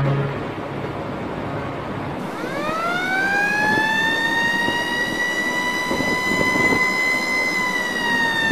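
A deep horn note trails off at the start. About two seconds in, a siren winds up, rising in pitch, then holds a steady wail that sags slightly in pitch near the end.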